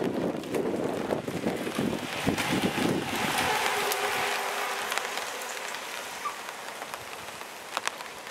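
Pack of mountain bikes racing past on tarmac: rolling tyre hiss that swells as the riders pass close, about three to four seconds in, then fades as they ride away, with a few sharp clicks near the end.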